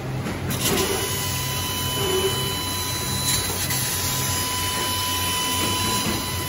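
CNC laser cutter cutting 6 mm steel plate: a steady hiss from the cutting head with a thin steady high tone, the hiss filling in about half a second in.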